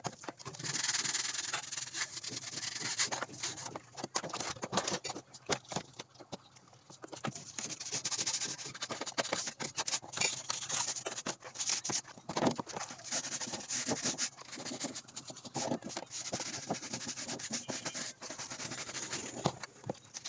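Plastic scrub brush scrubbing a wet, soapy panel in quick, irregular strokes.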